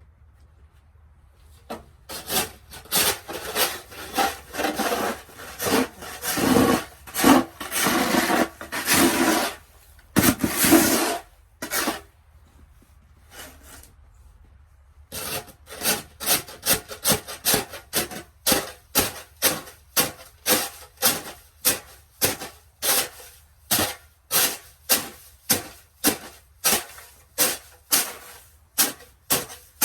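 Footsteps crunching through deep snow, irregular and dense at first, then after a short pause a steady walking rhythm of about two steps a second.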